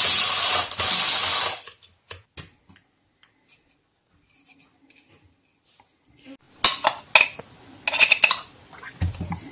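Electric blade spice grinder whirring as it grinds black peppercorns, in two short pulses that stop about a second and a half in. A few clicks follow as it is opened. Later, a metal spoon scrapes and clinks against the steel grinder bowl.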